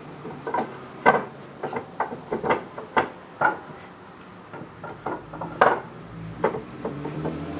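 Loose wooden workbench parts being handled: a run of irregular wooden knocks and clatters, the sharpest about a second in and again past the middle.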